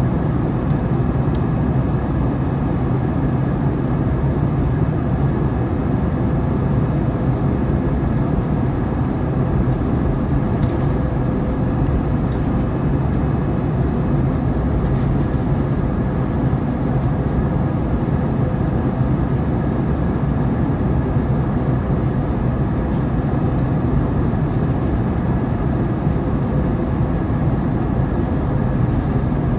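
Steady, unbroken drone of an Airbus A321neo's jet engines on approach, mixed with a low wind rumble.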